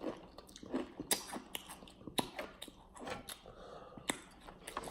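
Someone chewing crunchy chips with their mouth close to the microphone: irregular crisp crunches, several a second.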